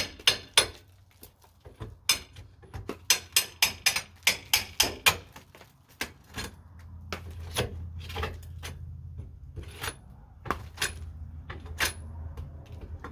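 Hammer blows chipping hardened mortar out from around a window frame in a stucco wall: sharp knocks, a quick run of about ten between two and five seconds in, then scattered single strikes.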